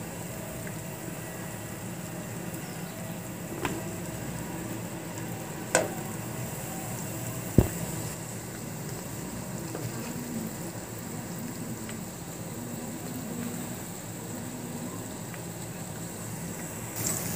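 Bread slices deep-frying in hot oil in a nonstick kadai: a steady sizzle. Three sharp clicks come about two seconds apart in the first half, as the wire spider skimmer knocks against the pan.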